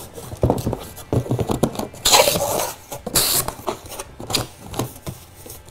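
Cardboard box being opened by hand: the lid and inner cardboard flaps scrape and slide against each other, with small knocks from handling and two louder scraping rushes about two and three seconds in.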